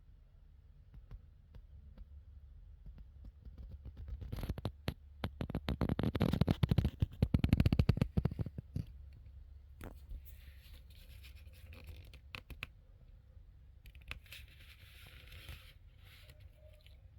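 Handling noise: a dense run of scraping and crackling clicks about four to nine seconds in, then two softer spells of scratchy rustling.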